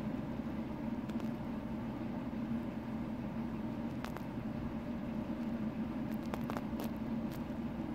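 Steady low background hum with a faint hiss, and a few faint light ticks from fingers handling a metal ring on conductive yarn, about four seconds in and again around six to seven seconds in.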